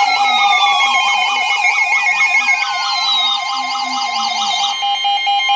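Several weather radios and broadcast radios sounding Emergency Alert System tones at once: steady alert tones layered with fast warbling, siren-like tones and slowly falling glides. The alert tones announce a newly issued severe thunderstorm warning.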